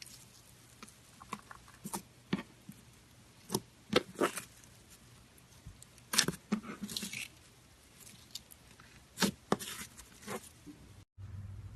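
Clear slime being handled: irregular sticky pops, clicks and short squelches, the loudest about four and six seconds in.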